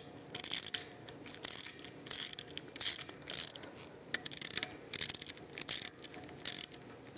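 Hand ratchet wrench clicking in short strokes as it turns the push-off screws of a B-Loc keyless bushing a quarter turn at a time, pushing the hub's inner pieces off the shaft. The runs of clicks come in irregular spurts of under a second each.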